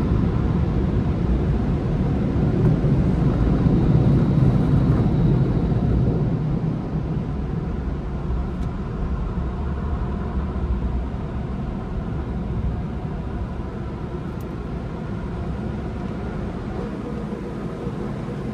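Car wash tunnel equipment running, heard from inside the car as a steady rushing noise, with hanging cloth strips sweeping across the windshield partway through. The noise grows gradually quieter over the second half as the car rolls out of the tunnel.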